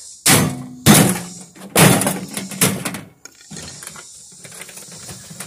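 Hammer striking a microwave oven's sheet-metal chassis to knock a stuck screw loose: about four sharp metallic strikes in quick succession over the first three seconds, each with a brief ring, then a lighter knock.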